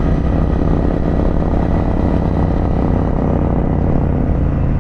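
2024 Harley-Davidson Pan America's Revolution Max 1250 V-twin running steadily under way through an aftermarket exhaust.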